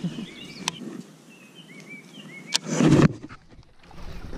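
Songbirds chirping, two sharp clicks, then a short loud splash about three seconds in as a hooked bass thrashes at the water's surface.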